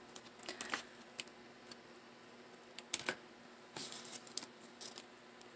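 Scattered light clicks and rustles of hands working satin ribbon petals and a hot glue gun, gluing a petal onto a ribbon flower.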